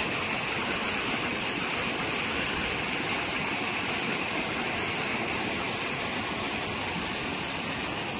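Fast floodwater of a rain-swollen river rushing and churning, a steady, even rush of water.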